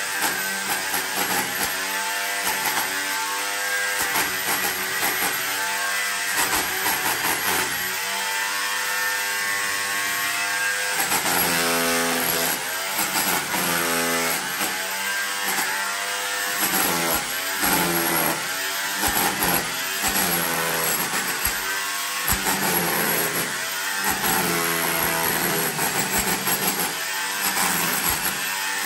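Corded hammer drill with a chisel bit chipping old plaster off a brick wall: a continuous loud hammering and motor whine, the pitch wavering as the bit is pressed into the wall.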